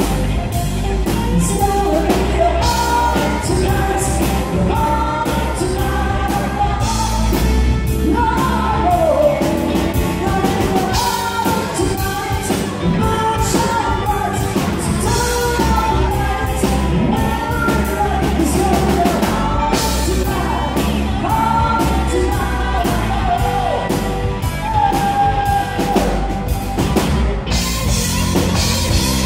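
Live country band playing, with a male lead singer over drums, electric guitar and keyboard, at a steady beat.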